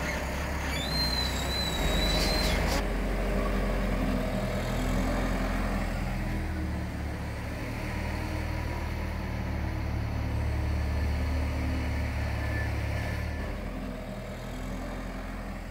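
SkyTrak telehandler engine running steadily, with a brief high wavering squeal about a second in. The engine sound fades near the end.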